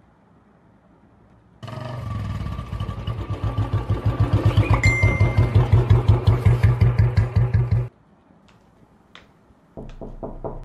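Motorcycle engine running with a rapid, even low thump of about six beats a second. It grows louder over the first couple of seconds, then cuts off abruptly. Near the end, several knocks on a wooden door.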